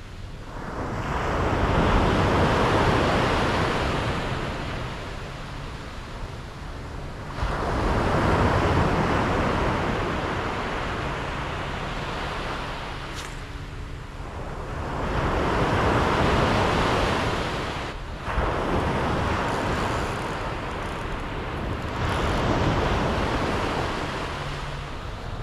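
Surf breaking on a sandy beach, the rush of each wave swelling and fading about four times, with wind buffeting the microphone.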